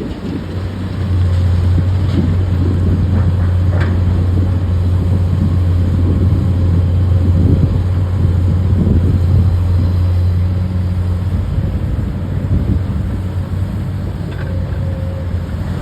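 Heavy diesel machinery engine running steadily with a deep, even hum, getting louder about a second in.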